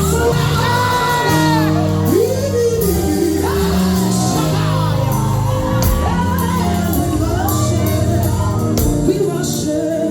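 Background music: a song with singing over sustained bass notes and a beat.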